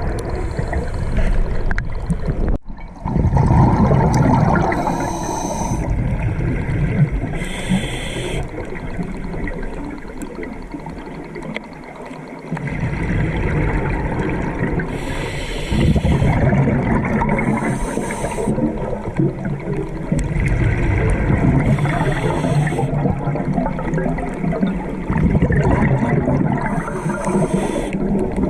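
Scuba regulator breathing heard underwater: a short hiss on each inhalation every few seconds, between rumbling, gurgling bursts of exhaled bubbles.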